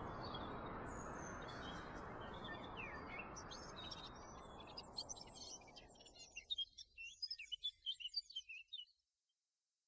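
Small birds chirping and twittering in quick, irregular calls over a soft steady background noise. The noise fades away about two-thirds of the way through, leaving the chirps clearer, and then all sound cuts off abruptly about a second before the end.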